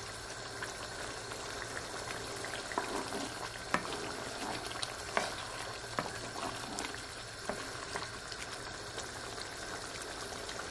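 Wooden spoon stirring curry chicken wings in a thick gravy in a nonstick pan, with scattered knocks and scrapes of the spoon against the pan over a steady bubbling hiss from the hot sauce.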